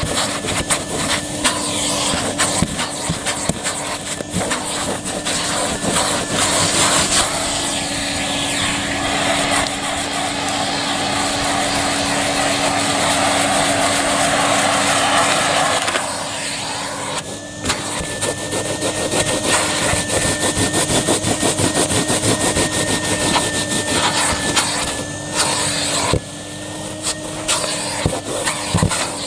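Numatic Hetty vacuum cleaner running steadily, a motor hum under the rush of suction as the nozzle works over a small car rug. About halfway through, the airflow sound changes and a thin whistle comes in for several seconds.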